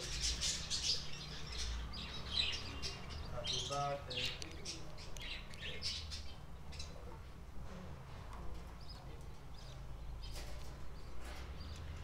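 Caged budgerigars chirping and chattering, many short high calls crowding together at first and thinning out in the second half, with one lower squawk-like call about four seconds in, over a low steady hum.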